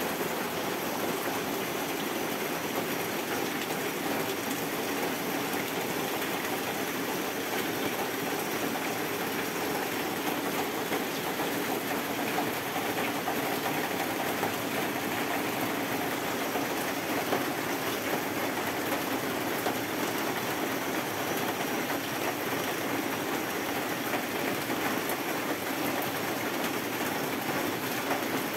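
Steady rain falling on wet ground and surfaces: an even hiss scattered with small drop ticks.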